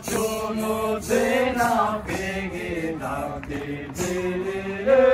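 Group of voices singing a Hyolmo shayar folk song together in chant-like phrases, each held note lasting about a second, swelling loudest near the end.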